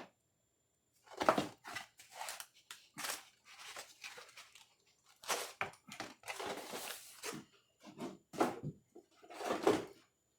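Irregular scraping and rubbing noises from hands working in a workshop, each lasting under a second, with a few sharper knocks among them.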